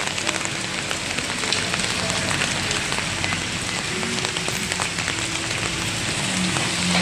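Heavy rain falling, a steady hiss full of small drop hits. A low hum grows louder near the end.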